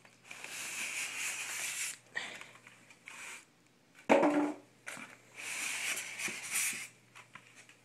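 Styrofoam packing blocks scraping against the cardboard box as they are pulled out: two long rubbing spells, with a thump about four seconds in.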